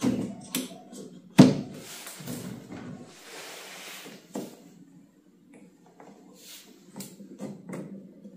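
Workshop handling sounds: a string of knocks and clicks, with one loud knock about a second and a half in and a short soft hiss a little later.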